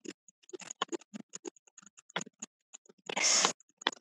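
Scattered, irregular clicking and tapping at a computer. A short burst of rushing noise about three seconds in is the loudest sound.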